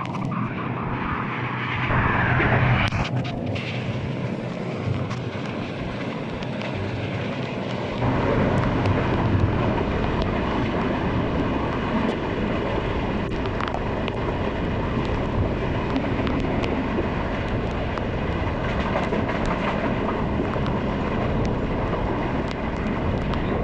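Passenger train running at speed, heard from beside an open carriage window: a steady rumble of wheels on rail mixed with rushing air, with faint clicks throughout. The low rumble grows louder about eight seconds in.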